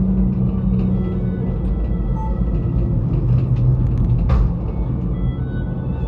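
Steady low hum and rumble inside an aerial ropeway gondola cabin as it climbs along its ropes, with one brief click about four seconds in.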